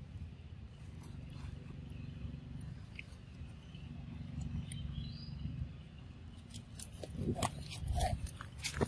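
Macaque eating a ripe papaya up close: soft chewing and smacking over a low rumble, then a run of sharp crackles and clicks near the end.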